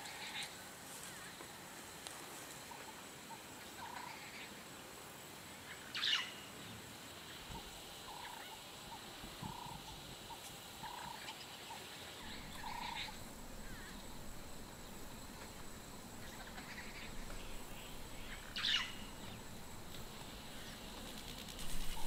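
Bush ambience with scattered wild animal calls: a string of short low notes and two sharp, louder calls about twelve seconds apart, over a faint steady background.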